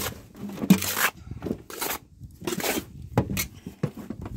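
Moist garden soil being mixed and crumbled by hand in a plastic tub: a series of short, irregular rustling and scraping strokes.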